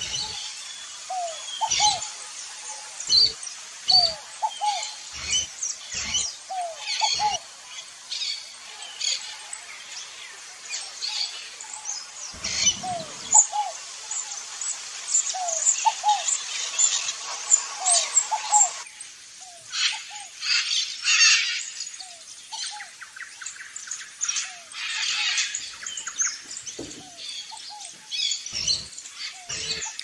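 Several birds chirping and calling, with a short rising note repeated about once a second over many quick high chirps, and scattered dull knocks in the first half. A background hiss drops away about two-thirds of the way in.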